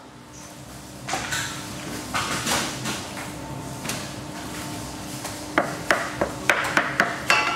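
Bakery workroom sounds: a steady machine hum under rustling and handling noises, then a quick run of about seven sharp knocks and clatters near the end.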